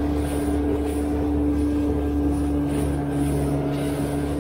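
Small boat's outboard motor running at a steady cruising speed, with water rushing and splashing off the hull.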